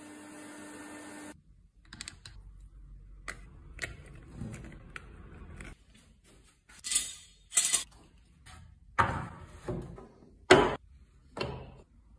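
A low steady hum that cuts off about a second in, then a string of clicks, knocks and rattles from handling a cordless drill and a cutting disc being fitted into its chuck, several of them sharp and loud.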